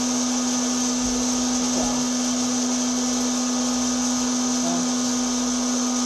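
Hot-air popcorn popper's fan motor running with a steady whir and hum while the kernels heat, before any popping has started.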